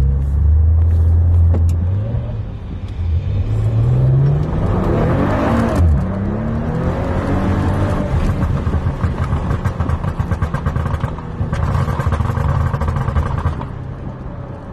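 Exhaust of a Stage 1-tuned Maserati Ghibli S twin-turbo V6. A low rumble gives way to the revs climbing for a few seconds, which drop off sharply about six seconds in, followed by a long run of rapid crackles and pops as the revs fall.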